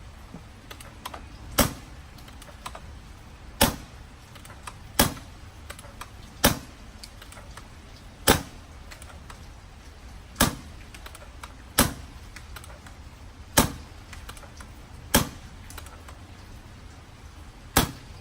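Empire Sniper pump-action paintball marker firing ten single shots on compressed air, each a sharp pop, spaced roughly one every one and a half to two seconds, with faint clicks between shots.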